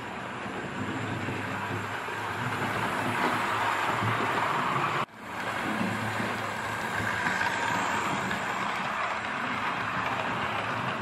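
OO gauge model trains running on the layout's track: a steady whir and rumble of the locomotive motor and wheels on the rails. The sound breaks off abruptly about five seconds in and starts again straight after.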